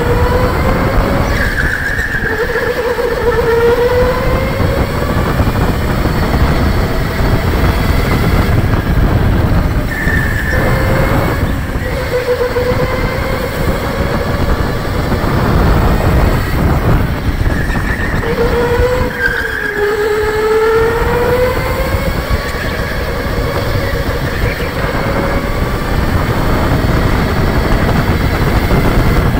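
Electric go-kart's motor whining, rising in pitch as the kart speeds up and falling as it slows, several times over, with a steady heavy rumble underneath.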